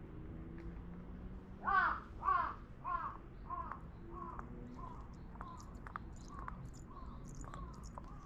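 A crow cawing: a run of about a dozen caws a little over half a second apart, the first two loud and the rest growing fainter.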